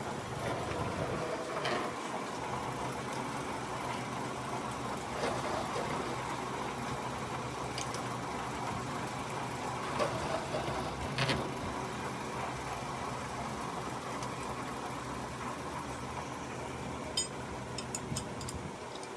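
Milling machine running steadily with a low hum and mechanical noise, with a few short metallic clicks and knocks scattered through, several of them close together near the end.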